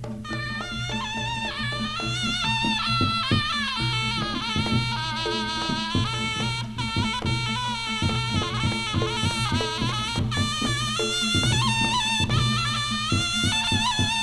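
Javanese jaranan ensemble music: a double-reed slompret shawm plays a wavering, ornamented melody over frequent hand-drum strokes and a steady low drone.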